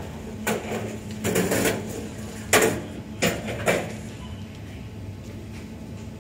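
Shop background: a steady low hum with five or six short, sharp clattering noises in the first four seconds, the loudest about two and a half seconds in.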